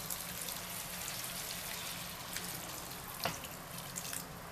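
Hot water poured in a thin stream from a jug into a pan of rice, a steady splashing trickle that eases off near the end. One short click about three seconds in.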